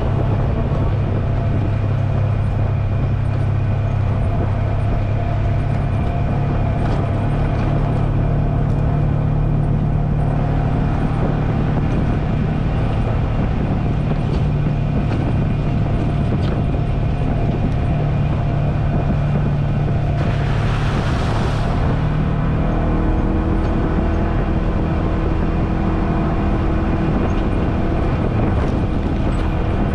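Polaris General XP 4 side-by-side running steadily under way on a trail, its engine a steady drone. A brief rushing hiss comes about twenty seconds in, and the engine note changes after it.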